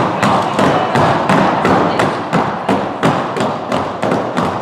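Quick run of thumps and taps, several a second, over a steady background din.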